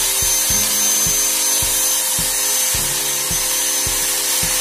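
Corded electric drill running steadily as it bores into a wall: a dense grinding noise with a thin high whine over it. Background music with a regular beat plays underneath.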